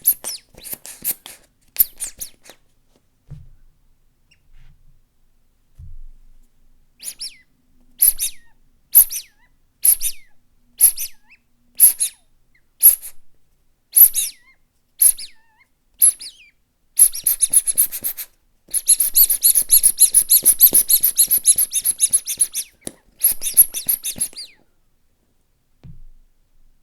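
Rubber squeaky toys being squeezed: single high squeaks about once a second, then a fast, continuous run of squeaking near the end.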